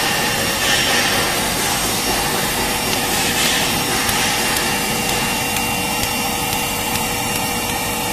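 Spray dryer running steadily: an even, loud rush of blower noise with a few faint steady whining tones. A plastic bag of powder rustles briefly twice, about a second and three and a half seconds in.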